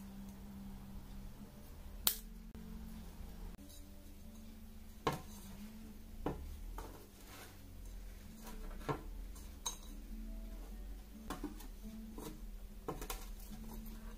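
Scattered sharp clicks and knocks of repotting by hand: scissors snipping old phalaenopsis orchid roots, then a small terracotta pot and stones clacking against a ceramic plate and into the pot. About seven separate clicks, the loudest about two seconds in, over a low steady hum.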